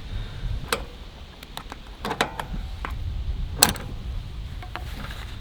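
Several sharp knocks and clicks, a second or so apart, from working a broken lawn mower front wheel loose to get it off, over low handling rumble.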